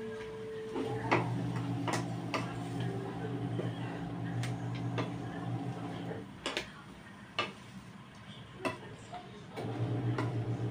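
Wooden spatula knocking and scraping against a metal wok as vegetables are stir-fried, in irregular sharp clacks. A steady low hum runs underneath, stopping about six seconds in and returning near the end.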